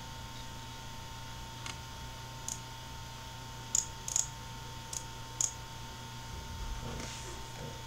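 About six scattered sharp clicks of a computer mouse, spread over a few seconds, over a steady electrical hum.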